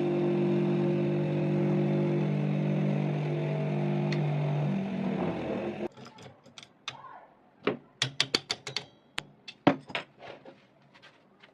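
Bench grinder motor running with a steady hum that cuts off abruptly about six seconds in, followed by an irregular run of sharp clicks and knocks.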